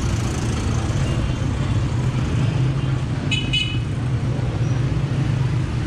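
Busy bazaar street noise: a steady low rumble of traffic, with a brief high-pitched two-note horn toot about three and a half seconds in.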